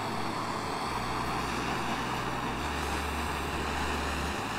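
Handheld torch flame burning with a steady hiss while it heats a nut. A low rumble joins in for about three seconds in the middle.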